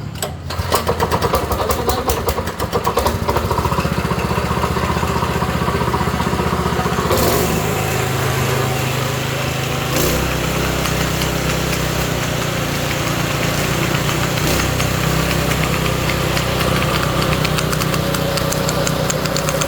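Small single-cylinder petrol engine of a concrete vibrator started cold on choke: uneven pulses for the first few seconds as it catches, then it runs steadily. Its note shifts about ten seconds in.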